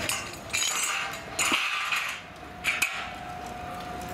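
Steel ride parts clattering and clanking in three short bursts during the dismantling of a funfair ride, with a faint steady tone coming in about halfway through.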